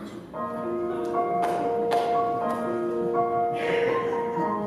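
Soft instrumental background music: slow, sustained chords with held melody notes changing about every half second to a second.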